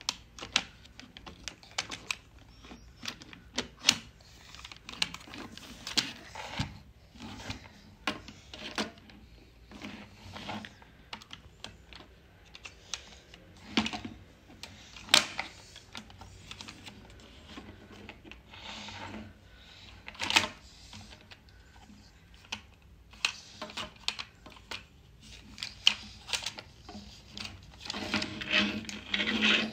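Hard plastic parts of a transforming dinosaur toy car clicking and clacking as it is handled and folded, in irregular sharp clicks and knocks that come thickest near the end.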